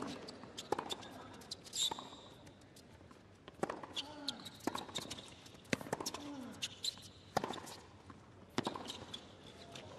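Tennis rally on a hard court: racquets striking the ball back and forth about once a second, with a shoe squeak and short grunts from a player on some shots.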